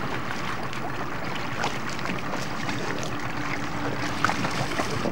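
Steady rush of river water and wind on the microphone around a bamboo raft, with small splashes as cormorants go into the water.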